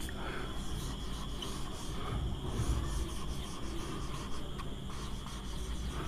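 Whiteboard marker rubbing across a whiteboard in short, irregular strokes as a word is written in cursive; faint.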